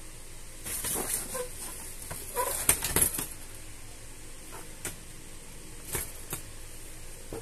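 Cats scuffling and pawing around an open umbrella: a run of short rustles and scratches, loudest about two to three seconds in, then a few single taps.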